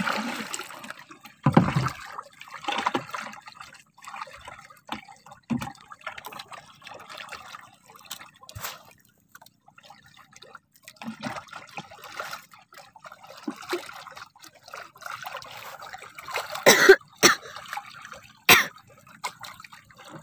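Water trickling and dripping with light splashes beside a small boat, and a few sharp knocks near the end.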